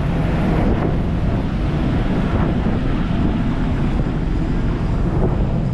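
Steady low rumble of wind blowing across the microphone in a snow squall, mixed with the drone of traffic.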